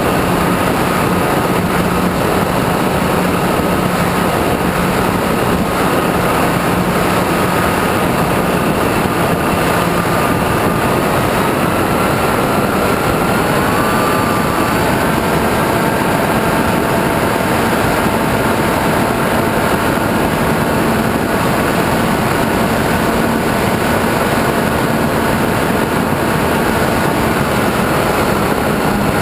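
RC airplane's motor and propeller running steadily, heard from the onboard camera with wind rushing past it. The motor's pitch steps up slightly about twelve to fifteen seconds in, a small throttle increase.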